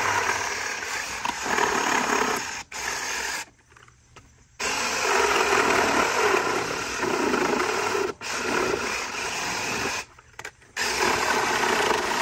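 Cordless HyperTough 20-volt reciprocating saw with a Diablo carbide-toothed demolition blade cutting through the nails between a wooden fence post and its 2x4 nailers. It runs in long cuts broken by a few short stops, the longest about a second just before the middle.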